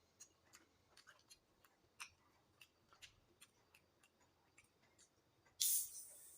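Quiet eating sounds: scattered small wet clicks of chewing, then a short, louder burst of noise about five and a half seconds in that fades within a second.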